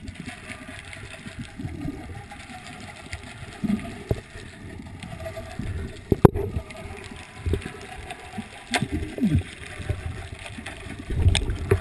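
Muffled underwater sound picked up by a submerged camera: water gurgling and sloshing, with low muffled voice-like sounds now and then and a sharp click about six seconds in.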